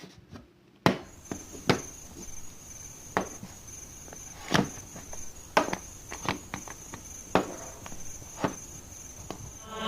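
Slime being squished and played with, giving sharp, irregular pops and clicks about once a second. A steady high-pitched trill runs behind them.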